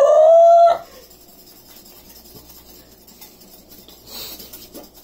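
A woman's long held vocal note, a mock race-car noise, rising slightly in pitch and cutting off about a second in. After it, the faint ticking and scraping of a wire whisk beating egg whites in a bowl by hand.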